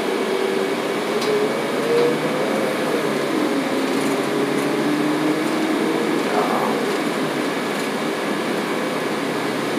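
Steady running noise of a train heard from inside the carriage: an even rumble and hiss with faint sustained tones that slowly drift up and down in pitch.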